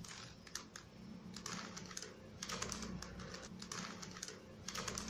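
Plastic Rubik's cube layers being twisted in quick runs: a faint clatter of clicks that comes in short bursts with brief pauses between them.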